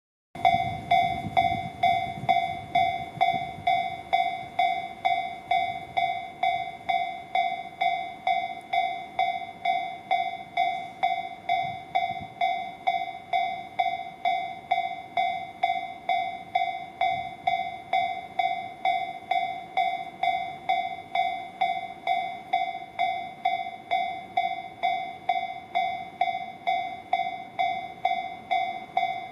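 Japanese railway level-crossing warning bell, the electronic 'kan-kan' alarm, struck about twice a second; it starts suddenly about half a second in. It is the signal that a train is approaching and the crossing is closing.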